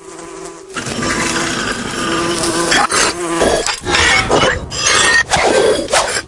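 Buzzing of a flying insect, rising and falling in pitch several times as it swoops close.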